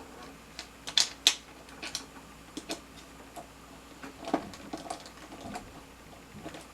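Irregular clicks and taps of small parts and screws being handled while fitting an RC plane's landing gear, the two sharpest close together about a second in.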